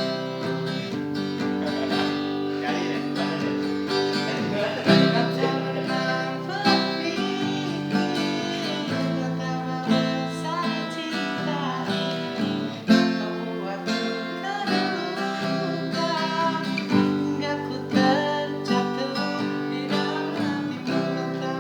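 Acoustic guitar strumming chords, with a voice singing a pop ballad over it.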